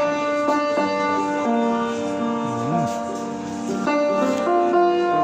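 Slow instrumental music of held notes, with a new chord sounding about every one and a half to two and a half seconds.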